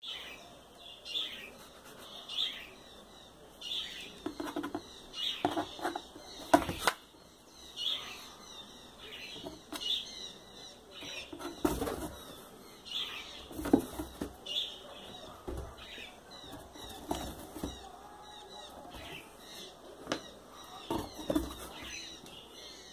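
Cat scrabbling and pawing inside a cardboard box: irregular bursts of scratching and rustling on the cardboard with a few knocks, the loudest about six and a half seconds in. Short high chirps recur faintly in the background.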